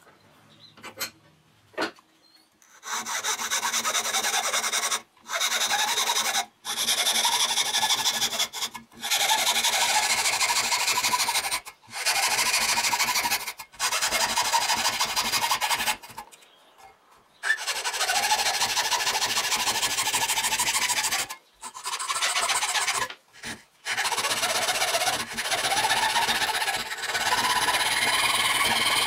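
Hand tool rasping into a wooden knife-handle block held in a bench vise: repeated back-and-forth scraping strokes in bouts of one to three seconds, with short pauses between bouts. The first two seconds are quieter, with a few light clicks as the block is set in the vise.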